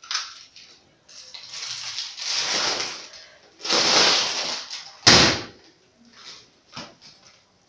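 Staged gunshot effects for a shot at a bottle: two long rushing noises, then one sharp bang about five seconds in, followed by a few faint clicks.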